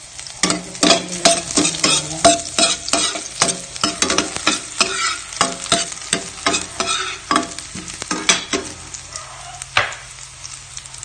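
Minced garlic sizzling in hot oil in a metal frying pan while a utensil stirs it, scraping and knocking against the pan about two or three times a second. The stirring stops about nine seconds in, with one more knock near the end.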